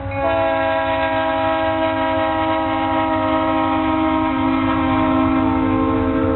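Locomotive air horn sounding a long held chord of several notes, starting just after the previous blast breaks off, with a low rumble from the train underneath.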